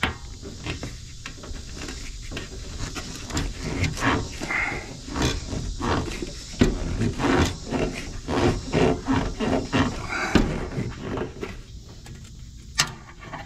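Tight rubber radiator hose being worked and pushed onto a metal radiator outlet neck: irregular rubbing, scraping and knocks, with the worker's strained grunts of effort in the middle. A sharp click near the end.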